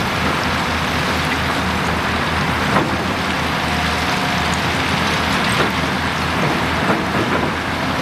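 Heavy diesel construction machinery running steadily, with a few sharp clanks.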